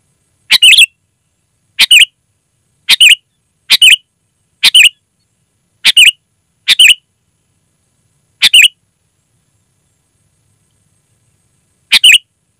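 Sooty-headed bulbul giving short, sharp calls, nine in all at irregular intervals, with a pause of about three seconds before the last one.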